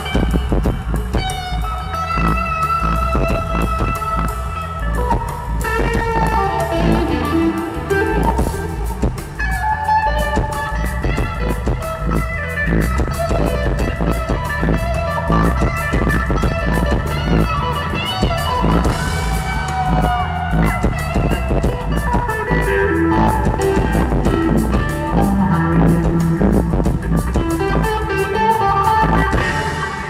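Live rock band playing an instrumental passage led by a Stratocaster-style electric guitar, with sustained, bending lead lines over bass and drum kit.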